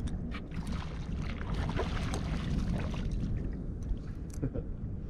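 Water lapping against the hull of a small metal dinghy drifting at sea, with wind on the microphone and a few faint clicks.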